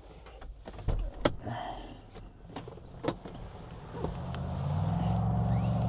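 A few sharp clicks and knocks inside a 2012 Toyota Highlander, then from about four seconds in a steady electric motor hum that swells over a second and holds.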